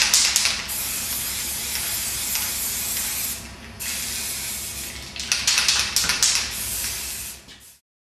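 Aerosol spray can of red primer hissing in long bursts, with a short break a little after three seconds. The can rattles as it is shaken at the start and again about five seconds in. The sound cuts off just before the end.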